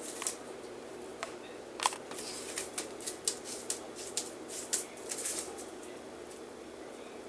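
A kitten pawing and scrabbling at a toy on the floor: irregular crinkling rustles and light clicks, with one sharp tap about two seconds in. The rustling dies down over the last second or two.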